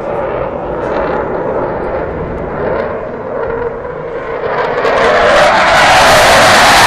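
Eurofighter Typhoon's twin EJ200 turbofan engines, a broad jet roar that grows louder and brighter as the fighter closes in, loudest near the end.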